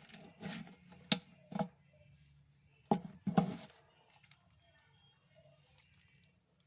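A few light clicks and knocks of plastic slime containers being handled, in the first half, then faint room tone.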